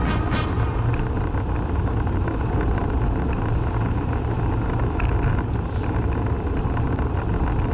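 Steady rumble of tyre and wind noise from a Quest velomobile rolling on asphalt at about 42 km/h, heaviest in the low end.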